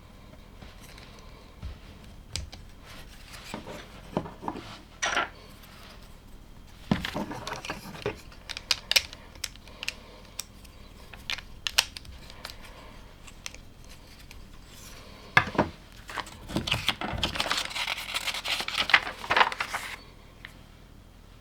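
Plastic LEGO pieces clicking and rattling as they are handled and pressed together, with scattered sharp clicks and a denser stretch of rattling and rummaging near the end.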